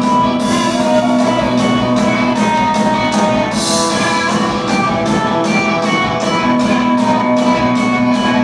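Live rock band playing: electric guitars strumming over a drum kit with a steady beat, and a cymbal crash about three and a half seconds in.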